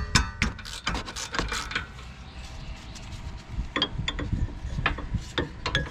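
Hand ratchet clicking and metal tools knocking while a brake caliper bracket bolt is worked loose, in bursts at the start and again about four seconds in.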